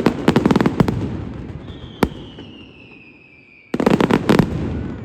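Daytime fireworks going off: a rapid string of sharp firecracker bangs lasting about a second, a single bang, then a whistle falling in pitch followed by a second rapid string of bangs near the end.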